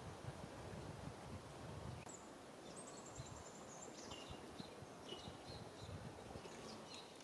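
Faint outdoor ambience with low rustling, and from about two seconds in a series of short, high chirping calls, including one quick trill.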